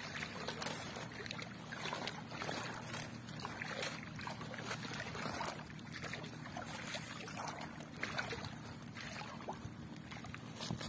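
Water splashing and dripping in irregular swishes as a fishing gill net is handled and hauled by hand, over a steady low hum.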